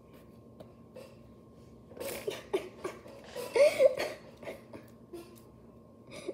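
A girl laughing in short bursts, starting about two seconds in and loudest just before four seconds.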